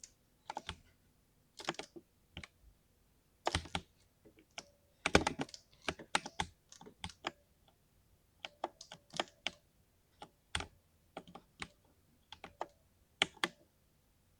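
Typing on a mechanical keyboard with lubed switches: irregular flurries of sharp keystroke clicks separated by short pauses, with the densest, loudest run about five seconds in.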